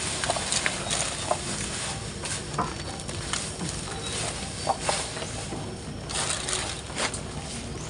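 Irregular rustling and light crackling of chopped green forage being pressed down by hand into a plastic drum for silage, with plastic-sack rustle and scattered small knocks.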